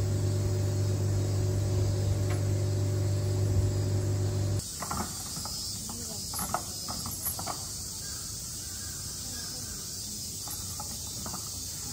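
A loud, steady mechanical hum, like a fan or cooling unit, until it cuts off abruptly about four and a half seconds in. After that, a steady, shrill drone of insects with a few faint distant voices.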